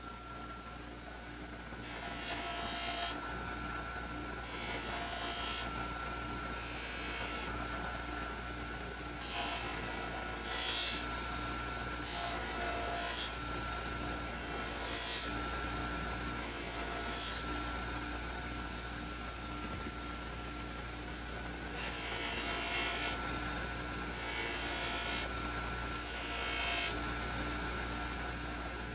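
Electric polishing buffer running steadily while a steel ratchet body is pressed against the wheel again and again, each contact adding a hissing rub.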